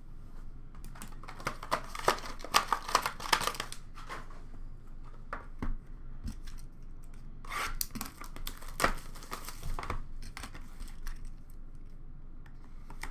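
Trading card box packaging being torn open and handled, with plastic wrap crinkling. It comes in two spells of tearing and rustling with sharp clicks, from about one to four seconds in and again around eight to ten seconds in.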